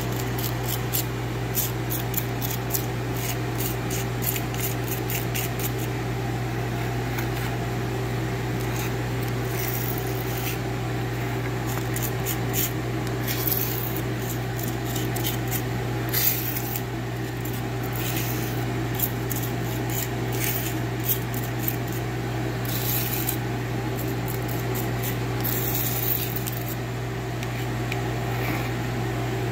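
Putty knife scraping and clicking against ceramic floor tile while grout is pressed into a missing grout joint and the excess scraped off: runs of short scrapes and clicks with a few longer strokes. Under it runs a steady machine hum.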